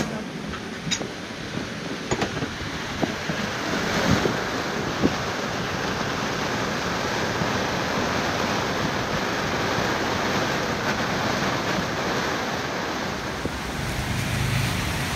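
Heavy rain and strong wind around a moored sailboat, a steady rushing hiss, with a few knocks in the first seconds. Near the end it gives way to the low rumble of traffic on a wet road.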